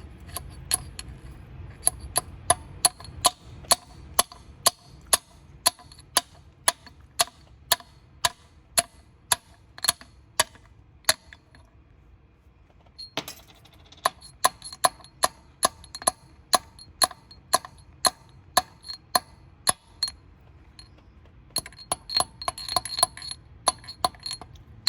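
Hammer tapping a steel punch to drive a small locating pin into a pinned ATI crank damper: sharp, ringing metallic taps about two a second, stopping for a couple of seconds midway and coming closer together near the end.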